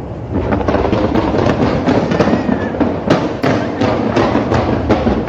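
Fireworks show going off in a rapid, dense string of bangs and crackles, beginning about a third of a second in.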